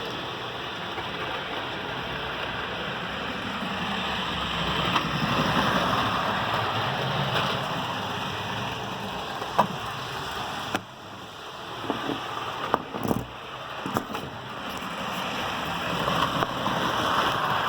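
HO scale model train running on its track, with a steady whirring rumble of motor and wheels that swells and fades. Partway through the noise drops off suddenly, and a few sharp clicks follow before the rumble builds again.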